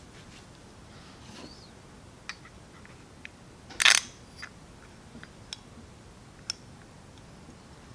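Small metal parts of a Bing 64 carburetor's throttle linkage clicking and clattering as they are handled and fitted, with one louder clatter about four seconds in and scattered light clicks around it.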